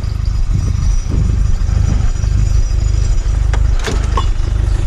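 Steady low rumble of a running vehicle, with a few sharp clicks near the end.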